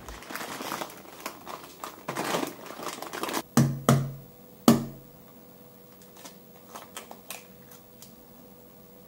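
Kitchen handling sounds: rustling for a few seconds, then three sharp knocks, the last one loudest, followed by a few light clicks over a faint steady hum.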